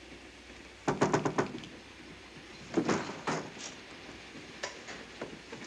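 Train compartment door latch clicking and rattling as the door is opened, followed about two seconds later by a second, duller thump.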